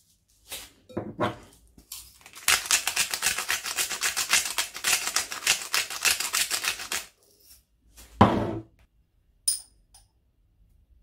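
Hand salt grinder filled with pink salt, twisted back and forth over a bowl: a rapid, dense rattle of grinding clicks lasting about four and a half seconds. A single knock follows about a second later.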